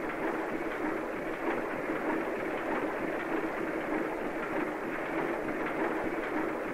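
A steady rushing noise with a faint low hum beneath it, unchanging throughout.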